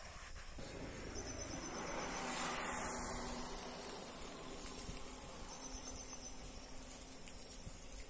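Water jetting from a hand-pump pressure sprayer's wand and splattering over hands and a dish being rinsed: a steady hiss that swells a little two or three seconds in.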